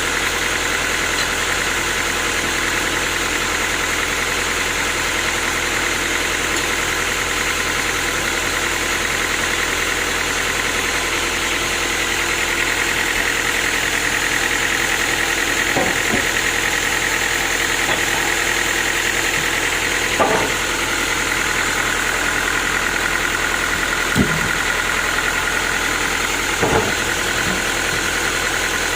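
Sawmill machinery running steadily with a high whine, which dips a little in pitch about two-thirds through. A few sharp knocks come around the middle and near the end.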